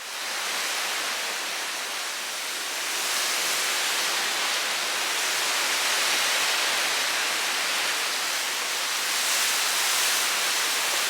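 Steady hiss of tropical-storm rain and wind from Hurricane Ian's outer bands, swelling a little a few times.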